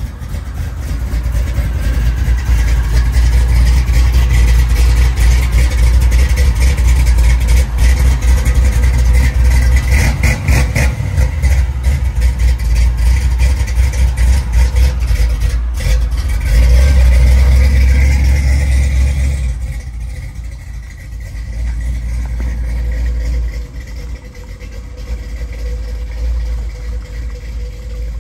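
1980 Chevrolet C10 Silverado pickup's engine running as the truck pulls away and drives off, a deep low sound that is loudest about two-thirds of the way through, then fades as it moves off down the drive.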